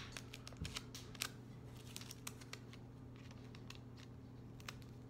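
Faint handling of a paper squishy being stuffed: soft paper rustles and a few light ticks, scattered and most frequent in the first second or so, over a low steady hum.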